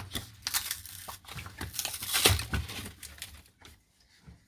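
Packaging crinkling and tearing as a pudding cup is pulled out of its multipack, loudest about two seconds in, then quiet.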